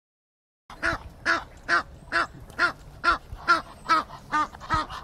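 A goose honking: about ten short, even calls at just over two a second, starting after a brief silence.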